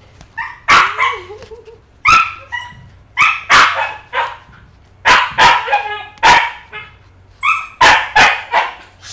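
Maltese puppy barking: a string of about a dozen short, high-pitched yaps, coming in quick clusters of two or three, at a hand held in front of it.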